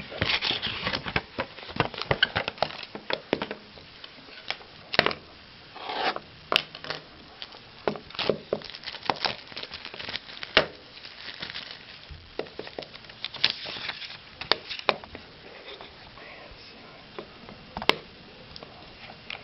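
Crinkling and rustling of plastic card packaging as trading cards are handled, broken by irregular sharp clicks and taps; the sharpest clicks come about five seconds in, about ten and a half seconds in and near the end.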